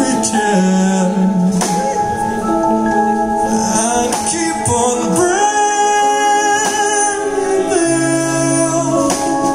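Live rock band playing a slow song: a male lead singer's long held, gliding notes over keyboards, with a few drum and cymbal hits.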